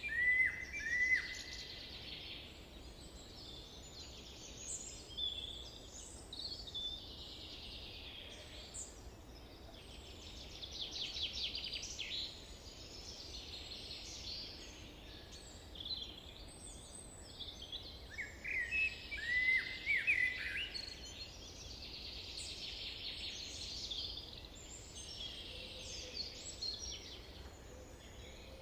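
Several songbirds singing and calling together: overlapping chirps, trills and short falling whistles, with a louder nearby bird near the start and again about two-thirds of the way through.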